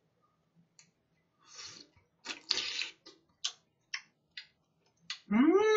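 Mouth sounds of eating a raw oyster from the half shell: a wet slurp and scattered wet clicks of chewing. Near the end comes a short hummed 'mmm' that rises and then falls in pitch.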